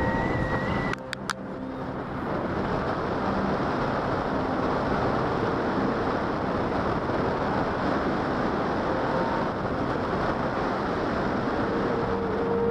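Wind rushing over the microphone during a wingsuit flight, a steady loud rush of air. About a second in it dips briefly, with two sharp clicks.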